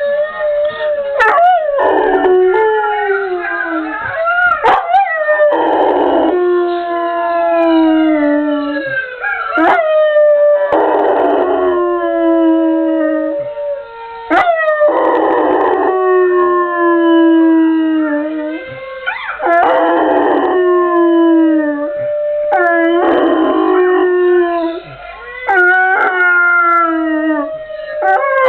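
Yellow Labrador howling: a run of long howls, each falling in pitch, repeated again and again with short breaks between.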